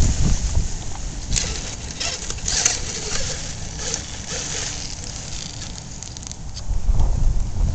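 Wind buffeting the microphone, strongest at the start and again about seven seconds in, with scattered light clicks and scrapes from a radio-controlled rock crawler's tyres and body working over rocks.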